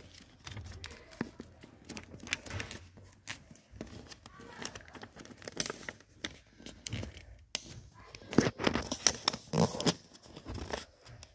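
A sheet of thin paper rustling and crackling as it is folded and creased by hand, in irregular crinkles and scrapes that grow busier and louder in the last few seconds.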